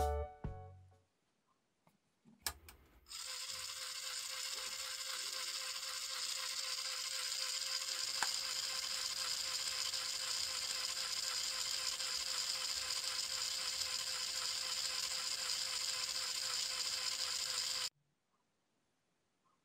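Small yellow plastic DC gear motor with a wheel, running on 6 V: a steady whirring of the motor and its plastic gearbox with a steady whine. It starts about three seconds in after a few clicks and cuts off suddenly near the end.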